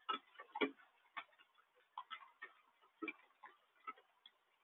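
Rain dripping: irregular sharp taps of drops hitting a hard surface close to the microphone, a few a second.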